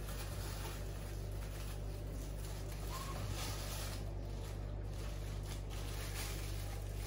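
Steady low hum, with faint rustling of plastic bags and one short high chirp about three seconds in.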